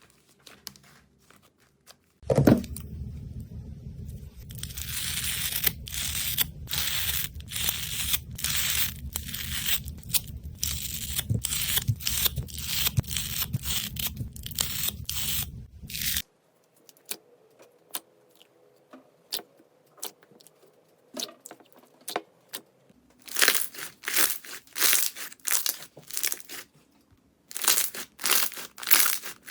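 Slime being squeezed and pressed by hand, with crisp crackling and popping clicks that come in dense runs, then thin out before loud clustered bursts near the end.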